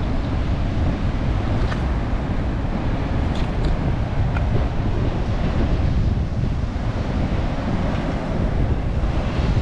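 Strong wind buffeting the microphone, a steady low rumbling noise with no break.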